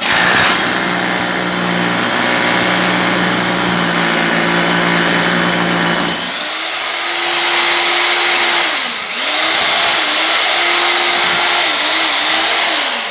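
Corded electric drill boring into a concrete floor at the base of a wall, drilling holes for a subterranean termite ground treatment. The motor runs steadily and changes pitch about six seconds in. It slows briefly around nine seconds, then runs again and stops at the end.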